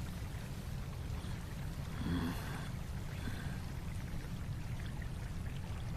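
Low, steady background rumble, with a faint soft sound about two seconds in.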